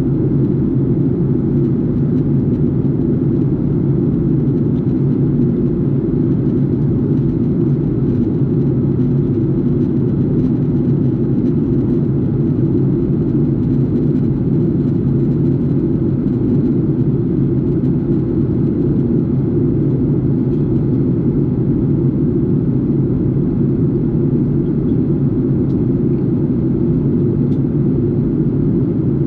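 Steady, unbroken low drone of a jet airliner in flight, heard inside the passenger cabin: engine and airflow noise.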